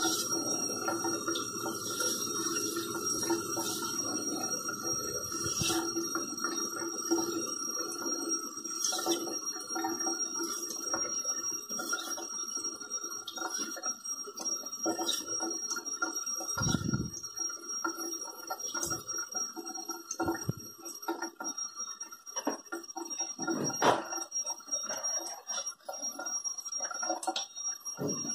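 Hap40 steel knife blade stroking back and forth on a wet vitrified CBN waterstone, with water from a tap running into the sink. Short clicks and a few dull knocks come through, the loudest a little before the end.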